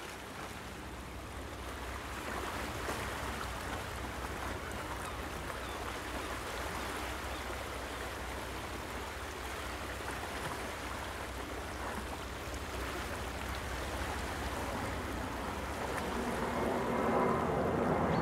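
Water churning and rushing in a moving boat's wake, over a steady low engine rumble. Near the end a louder, lower rumble builds up.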